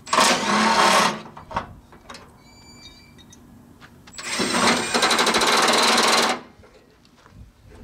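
Milwaukee cordless impact driver with a socket running bolts out of a car's front-end sheet metal, in two bursts: one in the first second and a two-second run starting about four seconds in. Light metallic clinks sound in the pause between them.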